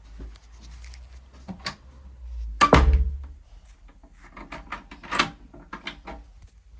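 A series of clicks and knocks, with one loud thump nearly three seconds in.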